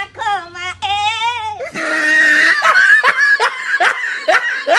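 Two men laughing loudly and heartily. About two seconds in, the sound cuts abruptly to a different, higher-pitched laugh made of quick repeated rising cackles.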